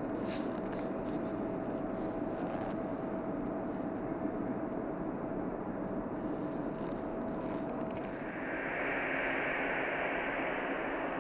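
A steady rumble of distant jet and airfield noise with a faint constant hum. About eight seconds in, the sound changes to the steady whine and rush of a four-engine Boeing 747 on final approach.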